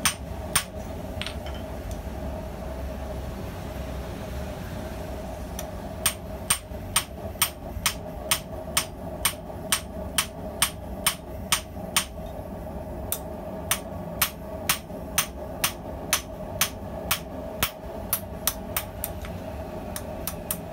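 Hand hammer striking a hot steel razor blade on a small anvil: a couple of blows, a pause of several seconds, then a steady run of blows, about two to three a second, drawing the edge down thin.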